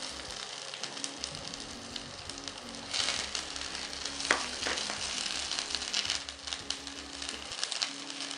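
Sliced onion and garlic sizzling and crackling in coconut oil in a non-stick frying pan as a silicone spatula stirs them. The sizzle grows louder about three seconds in, with one sharp tap of the spatula on the pan a second or so later.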